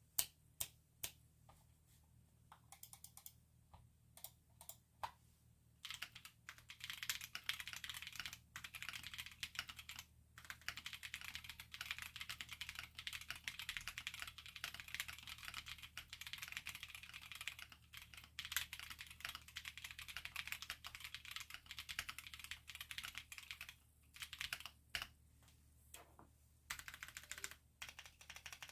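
Typing on a Portico mechanical keyboard fitted with stock Blue Velvet PME tactile switches: a few separate key presses at first, then fast continuous typing from about six seconds in, thinning to scattered presses near the end.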